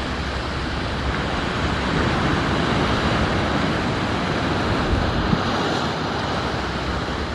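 Steady wash of ocean surf on a rocky shore, with wind noise over the microphone.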